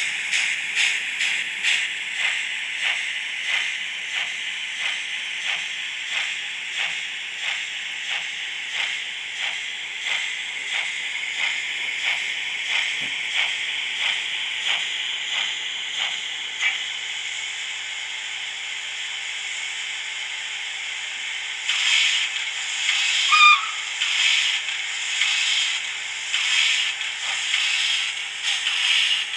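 Digital sound decoder of a model 141 TA steam tank locomotive: steady steam hiss with regular exhaust chuffs about two a second, synchronised to the wheels. The chuffs fade out about 17 s in, leaving only the hiss, then a louder, rougher hiss with beats returns a few seconds later, with a brief squeal.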